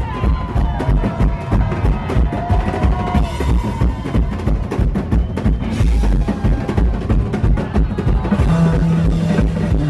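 Live band jam driven by fast hand drumming from two drummers, with electric bass; low held bass notes come in strongly near the end.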